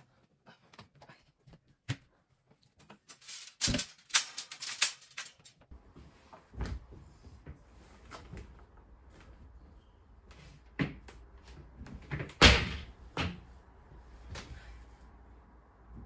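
Laundry being handled: scattered knocks and a short run of clatter as clothes come off a metal drying rack into a plastic laundry basket, then a series of dull thumps as the basket is tipped out onto a bed and the clothes are moved about. The loudest thump comes a little past the middle, over a faint low hum.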